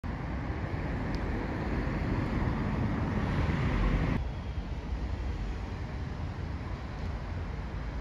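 Road traffic rumble that swells as if a vehicle is passing, then drops off abruptly about four seconds in to a quieter, steady traffic hum.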